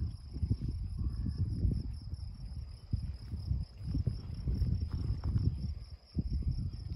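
Crickets trilling steadily, a single high unbroken tone. Over it, wind buffets the microphone in irregular gusts of low rumble, louder than the crickets.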